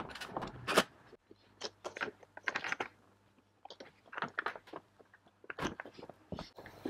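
Hand assembly of an IAME X30 two-stroke kart engine: quick, irregular clicks and clatters of a hand tool and metal engine parts. The sound comes in short bursts that cut off abruptly several times.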